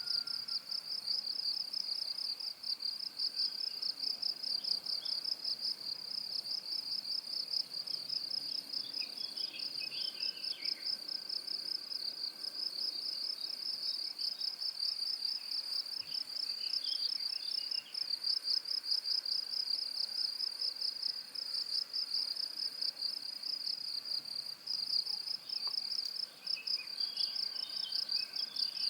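Cricket chirping in an unbroken, fast-pulsing, high-pitched trill, steady throughout. A few faint, short, lower chirps come and go in the background.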